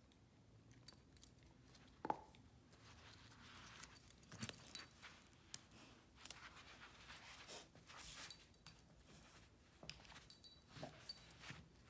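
A dog chewing and gnawing on a braided rope toy, then tugging at it, with scattered soft clicks and rustles and short jingles of the metal fittings on its collar and harness.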